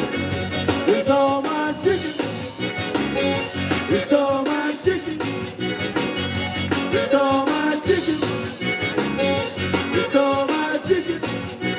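Live zydeco band playing an up-tempo number with a steady dance beat: accordion, electric guitars, keyboard, bass and drum kit.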